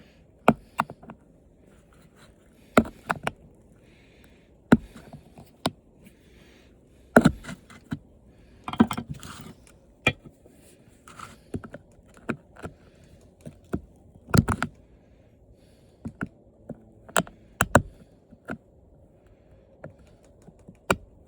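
Irregular clicks, knocks and scrapes of hard plastic and metal parts being handled and pried apart while an old television is dismantled, as a steel piece is worked loose. The loudest knocks come about 7, 9 and 14 seconds in.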